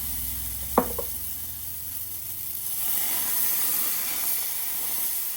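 Crêpe batter sizzling on a hot oiled griddle, the hiss growing a little louder about three seconds in. A brief sharp sound that falls in pitch cuts in just under a second in.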